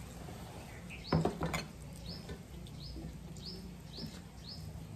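Quiet eating by hand: fingers mixing rice and curry on steel plates, with two sharp clicks a little over a second in. Short rising chirps repeat about once or twice a second in the background.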